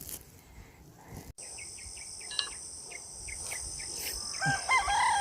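Steady high-pitched insect buzz with short repeated bird chirps, then a rooster crows near the end, its held call being the loudest sound.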